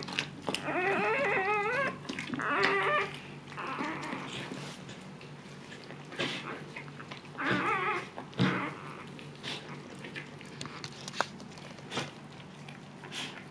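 Husky whimpering in short, wavering whines, in three bouts over the first eight seconds, then soft scattered clicks.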